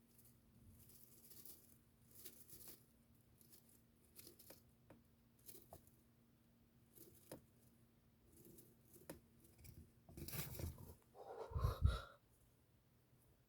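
Pet hamster sneezing: faint, scattered short sneezes and small scratchy rustles in its bedding, followed by a louder rustle and a bump near the end.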